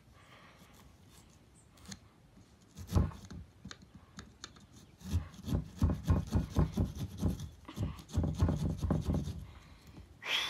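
Small pumpkin-carving saw sawing through a pumpkin's rind in quick back-and-forth strokes, in two runs in the second half, each stroke with a dull thump; a single knock about three seconds in.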